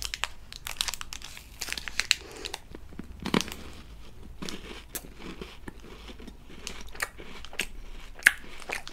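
KitKat wrapper being handled and torn open, crinkling in scattered irregular crackles, with a couple of sharper cracks about three seconds in and near the end.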